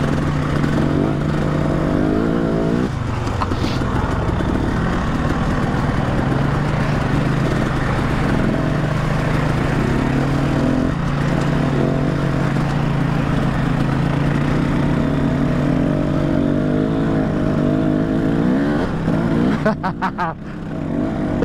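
Husqvarna dirt bike engine running at a steady, moderate throttle, heard from the rider's seat with wind noise over the helmet microphone. The engine note dips briefly about three seconds in, and a few gusty buffets come near the end.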